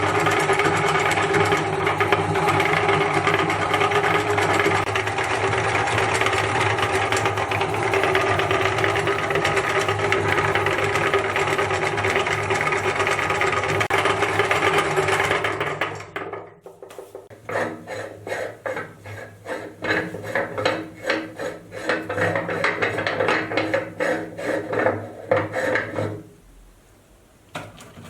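Electric meat grinder motor running steadily with a constant hum as it grinds biscuits, then stopping suddenly about halfway through. A run of irregular clicks and clattering knocks follows for about ten seconds and dies away near the end.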